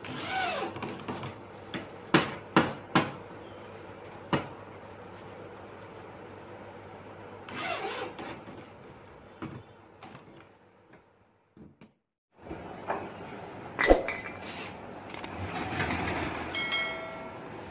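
Handheld electric drill running in short bursts as it drives screws into particle board, with several sharp knocks of wood between them. After a brief gap, more wooden knocks and scraping as the pull-out bed section of a wooden sofa cum bed is moved.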